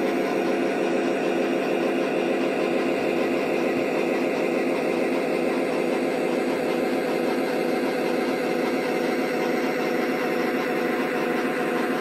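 Onboard sound system of a Lionel O gauge SD60M model locomotive playing a steady diesel engine sound with a regular pulse, as the model runs along its track.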